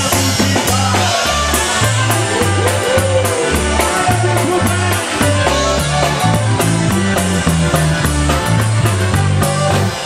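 Live polka band playing a polka, with clarinet and trumpet carrying the melody over a bouncing two-note oom-pah bass line.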